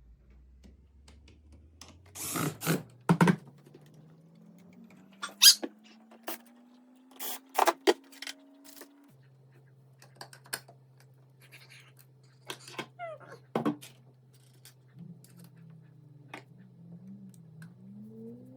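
Sharp clicks and knocks of a dimmer switch and its wall plate being handled and fitted into the electrical box, in two clusters early on and once more about two-thirds of the way through, over a faint low hum that slowly rises in pitch and then holds steady.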